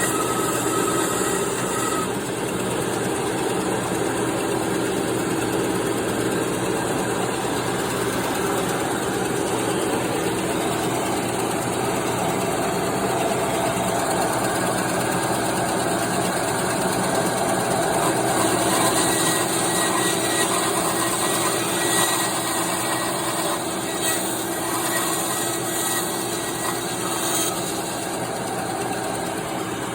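Bandsaw running steadily, its motor and blade making a continuous hum.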